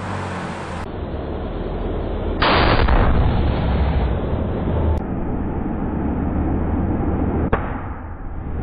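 A car engine running with a steady low exhaust rumble while its exhaust inflates a large rubber balloon stretched over the tailpipe. About two and a half seconds in, the balloon bursts with a loud bang.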